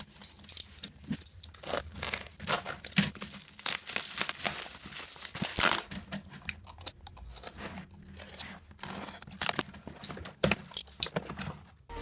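Packaging being crinkled and torn open by hand: a run of irregular crackles and rustles.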